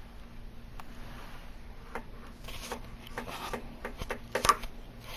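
Hand tools being handled on the edge banding: short scraping and rubbing strokes and a few sharp clicks, mostly in the second half.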